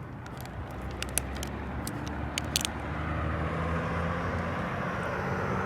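Road traffic: a motor vehicle running and growing louder from about halfway through as it approaches, over a steady low rumble. A few short clicks come in the first three seconds.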